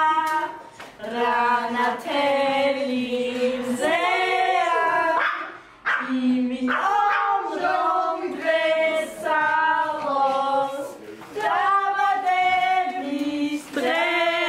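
A small group of women singing a song together, with long held notes and short pauses between phrases.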